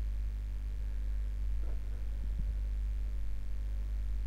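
A steady low hum, with a few faint soft knocks about two seconds in.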